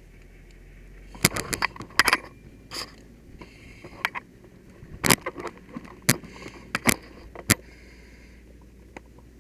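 Sharp clicks and knocks of a firefighter's gear and equipment being handled, about eight of them, several in quick pairs, with a soft hiss every few seconds.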